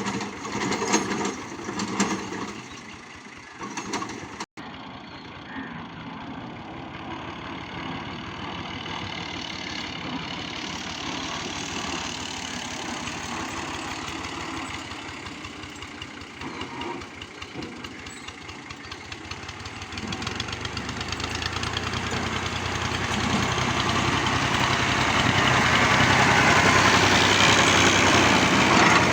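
Fiat 480 tractor's diesel engine running while it pulls a plough through dry soil. The sound breaks off for an instant about four seconds in, then grows steadily louder over the last ten seconds.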